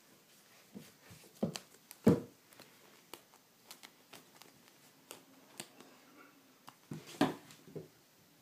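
Kitten scuffling against and biting at sweatpants and their drawstring: irregular rustles and soft knocks of paws and fabric, with louder thumps about two seconds in and about seven seconds in.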